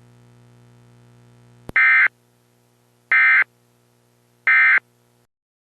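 Emergency Alert System end-of-message signal: three short, identical bursts of the screechy SAME digital data tone, about 1.3 s apart, marking the end of the alert. Before them a faint steady hum and a single click.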